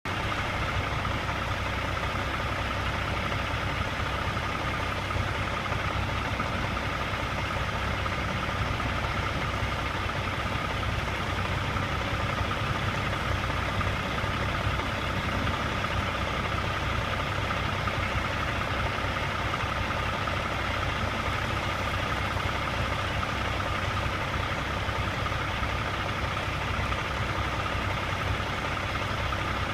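Steady mechanical hum, unchanging throughout, with a faint high whine over a low drone.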